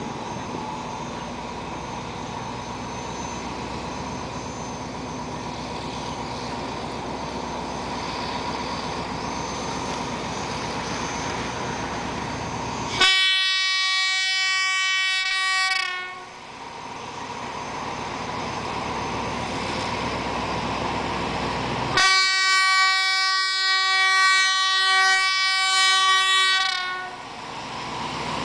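Diesel-electric locomotive (Thai SRT Alsthom ADD 4402) pulling a train out of a station, its engine running with a steady rumble that grows slowly louder as it approaches. About halfway through it sounds a steady horn blast of about three seconds. A longer blast of about five seconds follows near the end.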